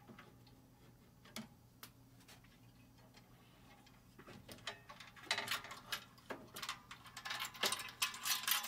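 Light scattered clicks, then from about five seconds in a denser run of clicks and rattles: a servo amplifier circuit board being worked loose from its mounting screws and slid out of its slot in a CNC mill's control cabinet.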